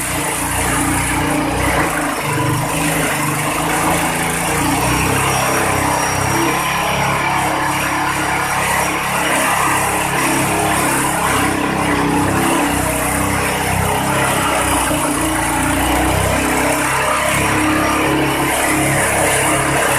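Multipurpose grass, compost and straw shredder machine running steadily.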